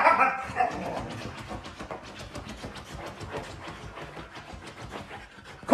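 A husky's short, wavering vocal cry at the start, then its paws scratching and digging rapidly at a fabric couch cover in a long run of quick scrapes.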